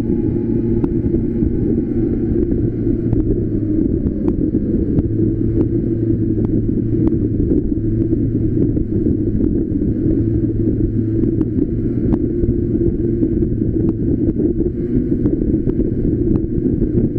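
Go-kart engine running steadily under way, mixed with heavy wind on the microphone, with scattered small ticks throughout.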